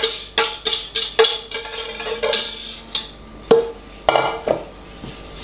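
Utensils clinking against a mixing bowl as muffin batter is combined and whisked: quick regular clinks, about three a second, that thin out after about three seconds to a few louder, separate knocks.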